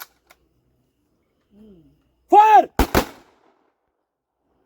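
A loud shouted command, followed at once by a rifle volley: two sharp cracks in quick succession, the gun salute of a military funeral guard of honour.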